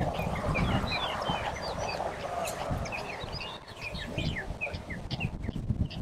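Yellow-breasted bunting and other small songbirds singing: a dense run of short, high chirps and whistles. Beneath it run low thuds and rumble from people walking on the wooden boardwalk.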